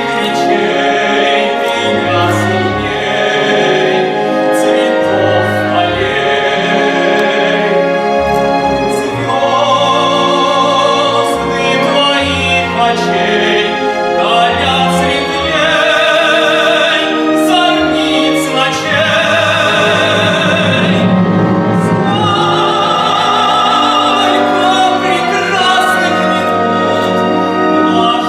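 A classically trained voice sings an operetta-style number with wide vibrato over continuous instrumental accompaniment.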